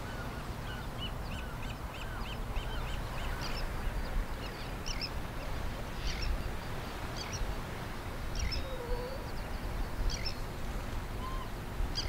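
Birds calling at the water's edge: a quick run of short high chirps about a second in, then scattered high calls, over a steady low rumble.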